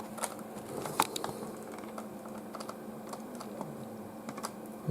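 Irregular light clicks and taps, like keys being typed, over a faint steady hum.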